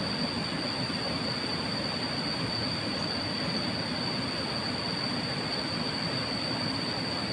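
Steady rush of flowing river water, with a constant high-pitched insect drone over it from the riverside vegetation.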